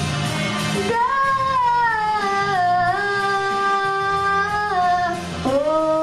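A girl singing long held notes into a microphone over instrumental accompaniment: one long note begins about a second in and is held with small slides in pitch, and a new note starts near the end.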